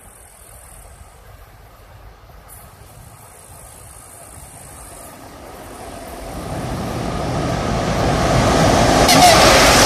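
Approaching diesel locomotive hauling a passenger train, its rumble swelling steadily from faint to loud over the last five seconds as it nears and crosses a steel truss bridge.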